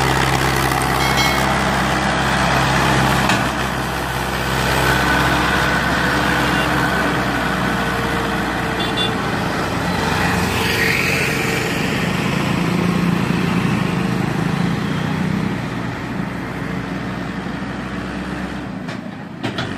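Diesel farm tractors pulling heavily loaded sugarcane trailers past, their engines running steadily with a low hum that fades near the end.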